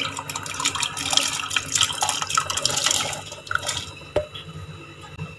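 Cauliflower florets tipped from a steel bowl into a pot of water, splashing and plopping in a quick patter that thins out after about four seconds.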